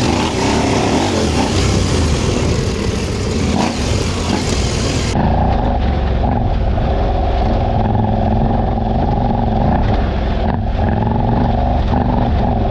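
KTM 790 Adventure R's parallel-twin engine running under throttle at speed, with heavy wind rush over the microphone. About five seconds in, the hiss drops away abruptly and the engine's steady note comes through more clearly.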